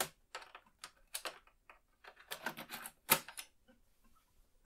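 Amiga 500's built-in 3.5-inch floppy drive taking a game disk and starting to load it: a string of irregular mechanical clicks, with the sharpest click a little after three seconds in.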